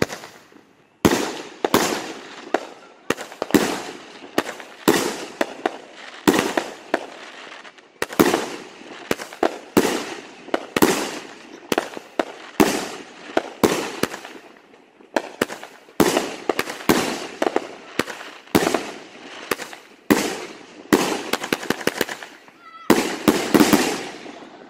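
Aerial firework cake firing shot after shot, a sharp bang roughly every second, each followed by a brief rattle of smaller cracks as the stars break. Near the end comes a quick flurry of cracks in a row.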